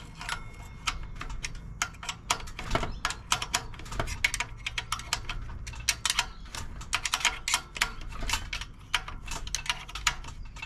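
Irregular sharp metallic clicks, several a second, from a hand tool tightening nuts on a stainless steel davit fitting.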